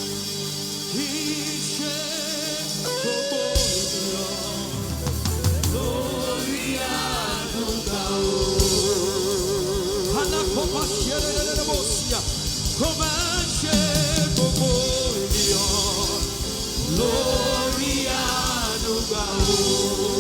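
Live gospel worship music: a voice singing held notes with wide vibrato over a band, with the drums and bass coming in about three and a half seconds in.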